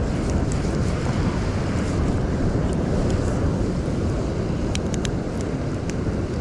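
Wind buffeting the microphone over the steady wash of ocean surf, with a few light clicks about five seconds in.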